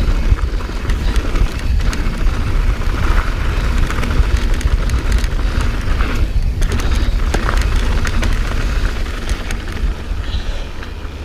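Wind buffeting a chest-mounted action camera's microphone as a mountain bike rides down a dirt trail, with tyre noise and scattered sharp clicks and rattles from the bike. It eases off near the end.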